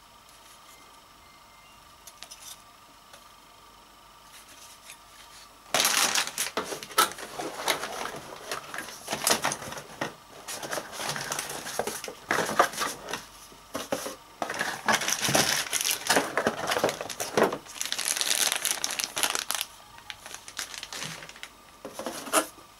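Graphics card packaging being handled: after about six seconds of quiet, a long stretch of dense crinkling and rustling as the cardboard box insert and packaging are moved, then one more short rustle near the end.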